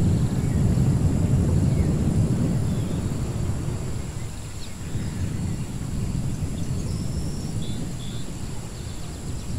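Designed ruins ambience: a deep, continuous rumble that swells, eases around the middle and builds again, with a few faint high chirps over it.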